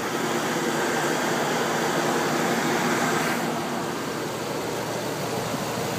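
2011 Chevrolet Silverado 2500HD's 6.0-litre Vortec gasoline V8 idling steadily, heard from the open engine bay.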